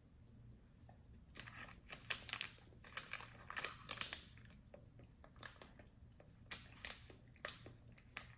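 Faint, irregular crinkling and crunching of snack packaging being handled and a snack being eaten, starting about a second in, over a low steady hum.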